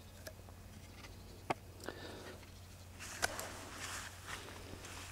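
Quiet low steady hum with a few faint, sharp light clicks and a soft rustle about three seconds in.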